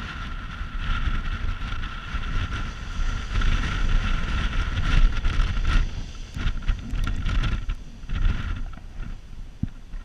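Wind buffeting the microphone in uneven gusts, over the hiss of surf breaking on the shore, with a thin steady whistle running through it. The gusts ease and break up after about six seconds.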